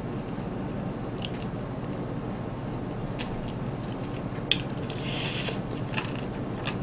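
Fried chicken being bitten and chewed close to the microphone: wet, squishy mouth sounds with a few small clicks, a sharp crunchy bite about four and a half seconds in and a crackle just after it, over a steady background hum.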